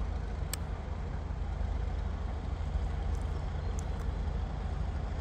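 BR Class 31 diesel locomotive approaching in the distance, its engine a steady low rumble that grows slightly louder.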